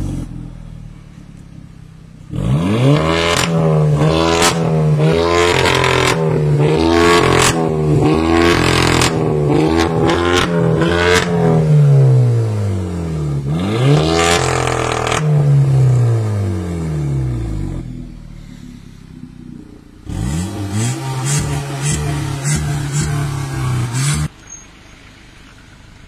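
Volkswagen Scirocco R's turbocharged 2.0-litre four-cylinder engine through an ARMYTRIX valved exhaust, revved in a long series of blips with sharp pops and crackles as the revs fall. The exhaust note jumps louder and drops quieter in sudden steps, and cuts to a quiet idle near the end, as the exhaust valves are switched by remote.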